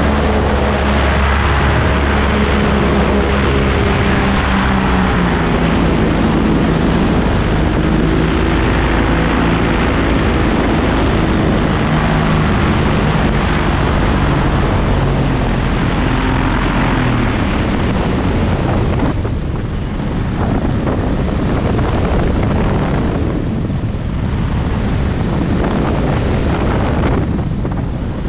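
Paramotor engine and propeller running in flight, with heavy wind rush on the microphone. The engine's tone shifts a little over the first half, then sinks under the wind in the second half, which dips briefly a few times.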